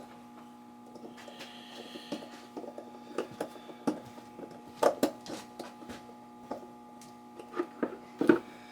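Scattered small clicks, taps and a brief scrape from hands and a tool working wires onto a light switch's terminals, over a faint steady electrical hum.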